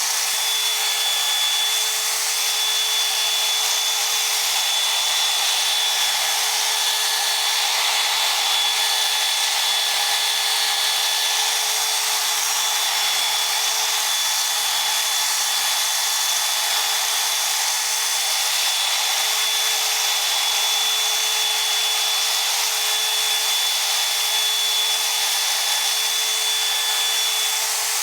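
Power drill running steadily with a constant high whine, spinning a fine 3000-grit sanding pad against a plastic headlight lens to take the fog out of it.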